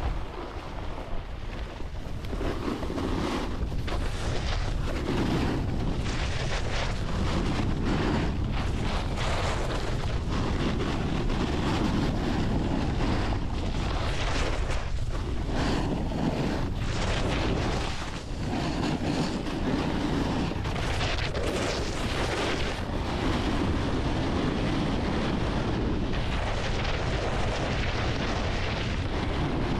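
Wind buffeting the microphone and a snowboard's edges scraping over packed snow during a downhill run. It swells over the first few seconds as the board picks up speed, then holds steady, dropping briefly once about two-thirds of the way through.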